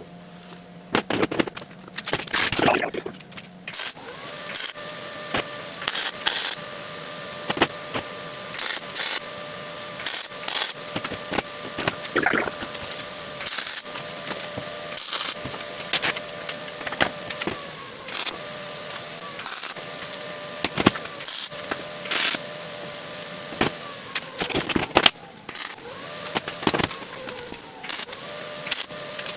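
Welding on a steel frame: short, irregular bursts of arc crackle and sharp clicks as small welds are laid, over a steady hum.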